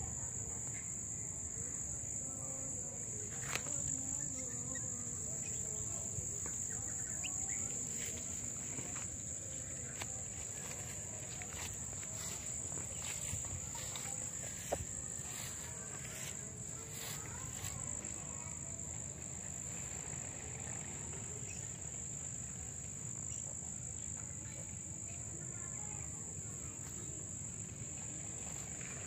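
A steady high-pitched insect chorus, with scattered light clicks and rustles between about 8 and 18 seconds in, over a low rumble.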